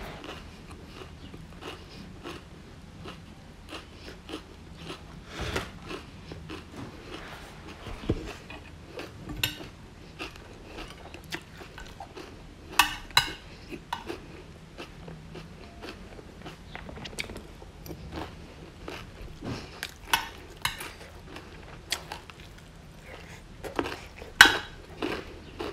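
Close-up eating sounds: chewing and crunching of stir-fried broccoli, shrimp and fried chilies, with a metal spoon clinking and scraping on the plate. A sharp double clink comes about halfway through, and the loudest clink comes near the end.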